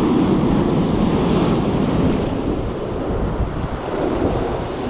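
Two-metre swell breaking on a rocky shore: a steady rush of surf, with wind buffeting the microphone.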